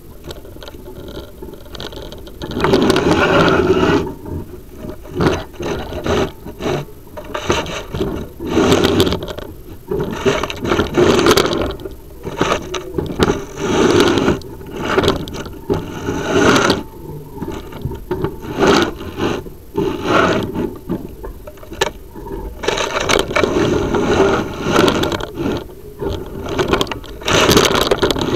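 Chimney inspection camera scraping and rubbing against the inside of the flue as it is pushed up, in irregular bursts of scraping and knocking.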